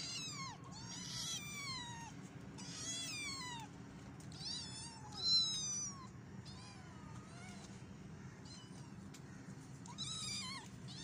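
Kittens meowing again and again, high-pitched cries that fall in pitch, coming every second or two, the loudest about five seconds in.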